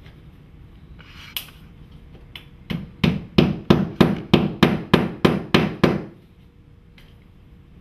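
Hammer nailing the top edge of a faux stone cladding panel to the wall. There is a single tap, then a quick run of about eleven blows, about three a second.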